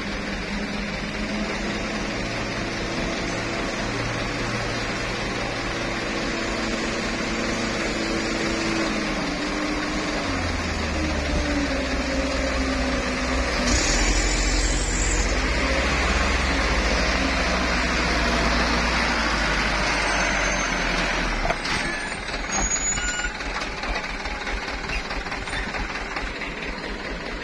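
A Mitsubishi Fuso Canter diesel truck, heavily laden with oil palm fruit bunches, labours up a soft, muddy dirt climb. Its engine note drops about a third of the way in, then runs loud and low as it passes close. A brief hiss comes about halfway through, and the engine fades away after about twenty seconds.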